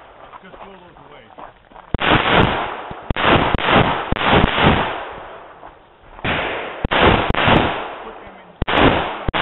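Semi-automatic pistol fired in rapid strings: a quick run of about seven shots, a short pause, then about four more, and two more near the end, each shot with a short echoing tail.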